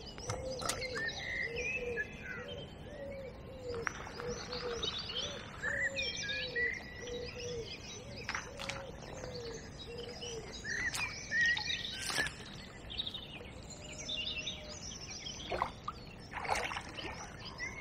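Wild birds singing in a dawn chorus, with many high chirps and trills. A run of short, low, repeated call notes goes on through the first half, and there are a few sharp clicks.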